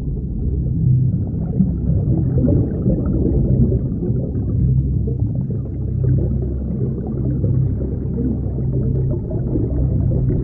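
Muffled underwater rumble with bubbling from a scuba diver's exhaled air, over a steady low hum.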